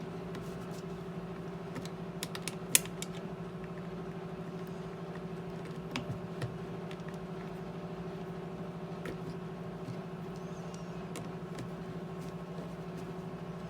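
An old, loud home furnace running with a steady hum. A few sharp clicks sound over it, the loudest about three seconds in.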